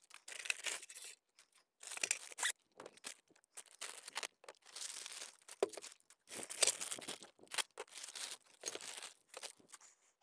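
Small plastic hardware bags crinkling and being torn open as mounting parts are handled, in irregular bursts of rustling with short pauses between them.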